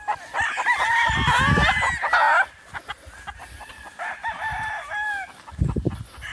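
Gamefowl roosters crowing, several crows overlapping for the first two seconds or so, then a single fainter crow about four seconds in.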